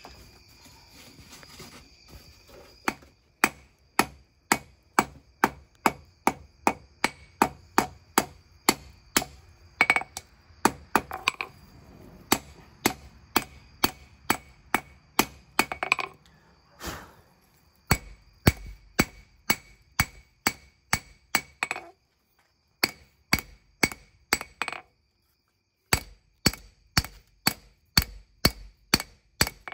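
Hand hammer striking hot leaf-spring steel on an anvil, drawing out a knife blade: a steady run of sharp blows, about two a second, starting about three seconds in and pausing briefly twice near the end.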